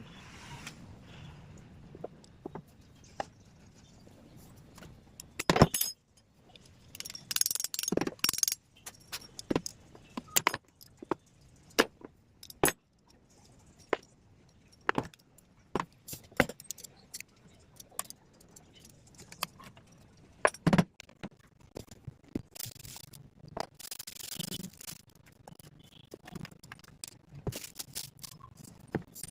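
Irregular clicks, taps and metallic clinks of hand work on angle grinder parts and tools during a bearing change, with a few louder knocks and short jingling clatters among them.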